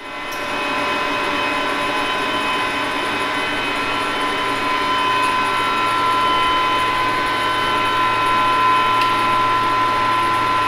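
Brewery process machinery running: a steady hum and whine with several held high tones over an even mechanical noise, fading in over the first second.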